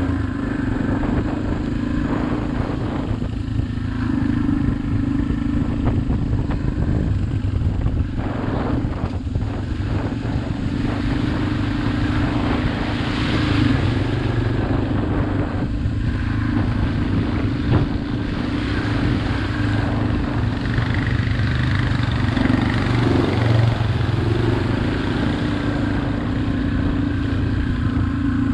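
Dirt bike engine running at a fairly steady cruising speed, with a few short knocks and clatters over the rough trail.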